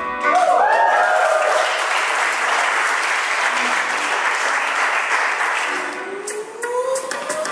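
A room of dancers cheering and whooping, then clapping and applauding as the dance music stops. The applause dies away about six seconds in.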